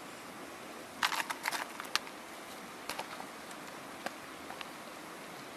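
Woven bamboo basket handled and set down over a black pan, with a quick cluster of rattling, scraping clicks about a second in and a few lighter single taps after it.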